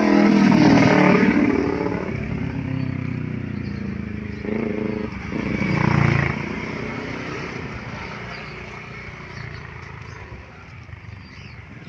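A motorcycle passes close by, its engine loudest at the start and dropping in pitch as it goes. A second engine, a motorized tricycle, rises and passes about six seconds in, cutting off sharply, and the sound then fades to distant traffic.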